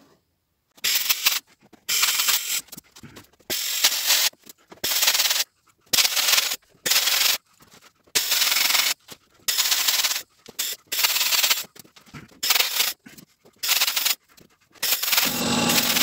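Handheld recirculating sandblast gun with a cup and dust bag firing copper-slag abrasive against the painted steel of a car door in short trigger bursts: a harsh hiss of air and grit, about a dozen blasts with brief pauses between them. Near the end the blasting runs on without a break and a steady low hum joins it.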